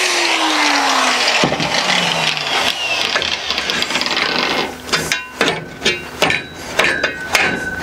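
An angle grinder is switched off and winds down, its pitch falling over the first second and a half. Then a cut piece of steel section clatters as it is handled, with a run of sharp metallic knocks and clanks that ring briefly, from about five seconds in, as it is knocked against the workbench.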